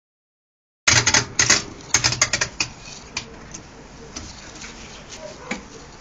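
Whirlpool AWG 371 front-loading washing machine starting its wash cycle: just under a second in, a rapid run of loud clicks and knocks lasting about two seconds, then the machine's steady running with an occasional click.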